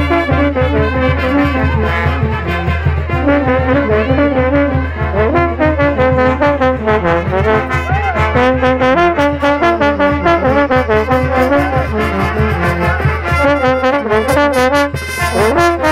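Brass band music, trumpets and trombones playing a stepping melody over a steady bass, loud and without pause.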